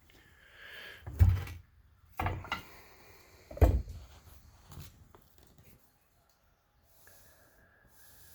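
Handling of a metal ship's-bell display stand: a short scrape, then a series of dull knocks and bumps as it is moved about. The two loudest knocks come about two and a half seconds apart.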